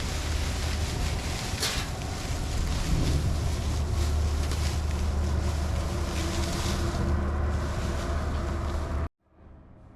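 Wind buffeting the microphone outdoors: a steady low rumble with a hiss over it. It cuts off abruptly about nine seconds in, leaving a much quieter background.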